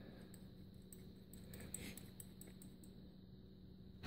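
Near silence: faint, small metallic clicks as the steel ER32 collet chuck and its mounting studs are handled, over a low steady hum.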